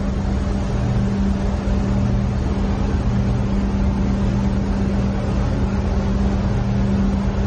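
Steady drone of a ship's engine-room machinery: a constant hum with a lower throb that swells and fades about once a second.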